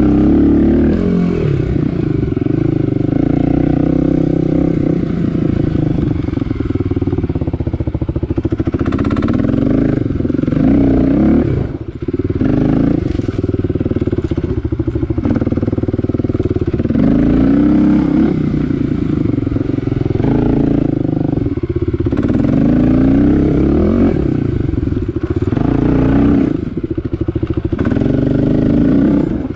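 Kawasaki KLX250's single-cylinder four-stroke engine running under way, its revs rising and falling again and again as the throttle is worked. The revs dip briefly about a third of the way in and again near the end.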